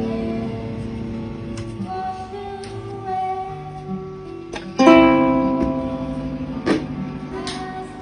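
Acoustic-electric guitar played through a Marshall tube guitar combo amp: strummed chords ring out and slowly die away. A loud fresh strum comes about halfway through, and another shortly after. This is a sound test of the amp after a repair for cutting in and out.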